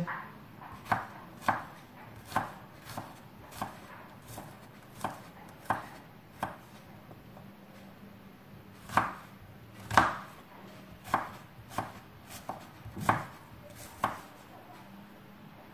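Kitchen knife chopping onion finely on a wooden cutting board: separate knocks of the blade hitting the board, roughly one or two a second, with a short pause about halfway through.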